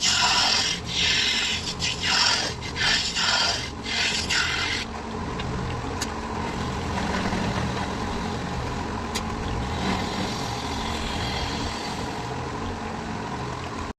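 Wood lathe running, with rasping strokes against the spinning wood, several a second, for about the first five seconds. Then the rasping stops and the lathe runs on alone.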